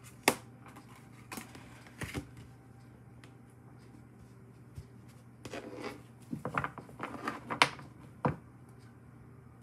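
Tarot cards being handled, flipped and laid on a wooden table: sharp card snaps and taps, one loud one just after the start and a cluster of them between about five and eight seconds in, over a faint steady hum.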